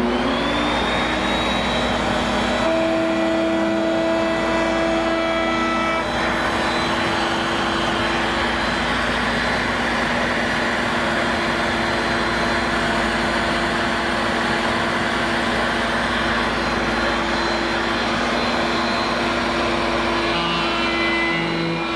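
Table-mounted router running steadily at full speed, its whine rising to pitch just after start-up, as wooden uprights are fed past a quarter-inch round-over bit set low for a shallow round-over.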